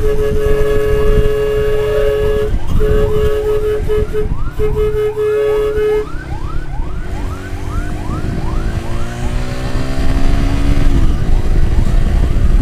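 An emergency-vehicle siren yelping in rapid repeated sweeps, with a steady horn-like tone held in long blasts over the first half. Under it is heavy wind rumble on the microphone, and an engine rises in pitch a little past the middle.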